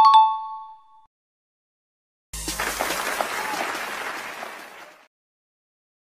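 A bright two-tone correct-answer chime rings and fades within about a second. After a short gap, a burst of cheering and applause starts abruptly and fades out over about three seconds.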